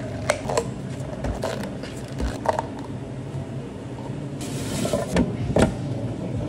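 Plastic dome lids are snapped onto two plastic cups of iced americano with a few sharp clicks. Later come a brief rustle and two knocks as a plastic blender jar is handled and its lid is fitted. A steady low hum runs underneath.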